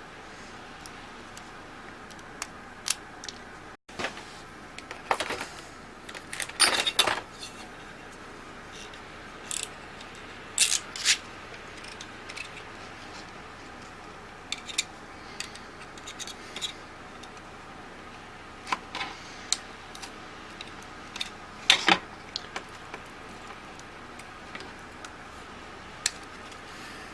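Scattered light clicks and taps of small tools and plastic camera parts being handled while a Canon IXY 150 compact camera is disassembled, over a steady hiss. The clicks come irregularly, in small clusters, the sharpest about 7, 11 and 22 seconds in.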